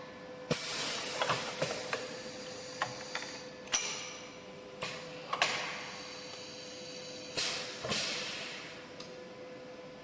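Automatic cylindrical cell crimping machine running a cycle: sharp mechanical clicks and clacks, several of them followed by a short hiss of released air that fades, over a steady machine hum.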